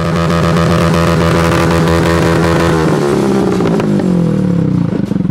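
A vehicle's engine, running again on fresh premium gasoline after sitting with a dead battery. It runs fast and steady, then drops to a lower idle about three seconds in.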